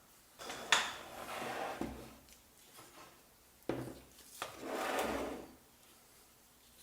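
Blender parts being handled: two spells of rubbing and scraping on hard parts, each starting with a sharp click.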